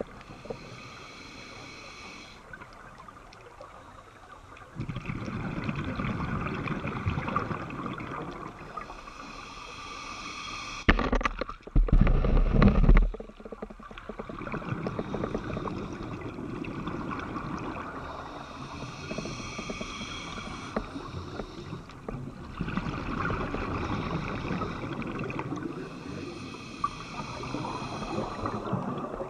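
Scuba regulator breathing heard underwater: a hissing inhale every eight or nine seconds, each followed by a low rumbling gush of exhaled bubbles. A louder low rumble lasts about two seconds, some eleven seconds in.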